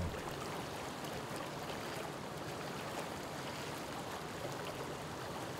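Rhône river water flowing, a steady rushing wash.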